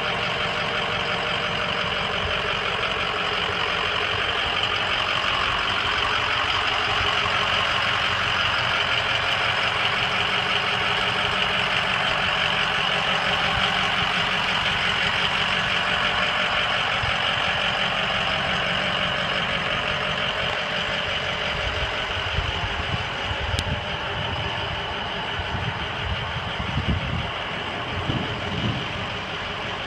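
Tow truck engine idling steadily, a constant hum under an even hiss, with irregular low bumps in the last several seconds.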